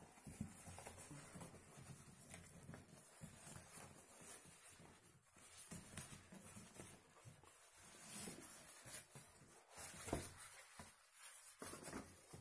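Faint rustling and scattered light knocks from hands handling an opened cardboard TV carton and the plastic-wrapped packing inside it.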